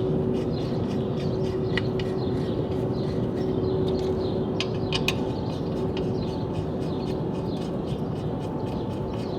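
Scattered metal clicks and rattles of a car wheel's lug nuts being put back on by hand and wrench as the wheel is refitted over the rear drum brake, over a steady background hum.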